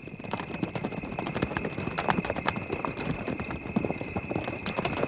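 Hoofbeats of a running horse: a quick, irregular clatter of hoof strikes.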